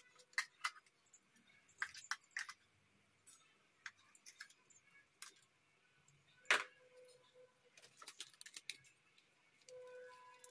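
Scattered light clicks and clinks of steel kitchen dishes being handled, with one louder clack a little past halfway. A faint held tone comes in near the end.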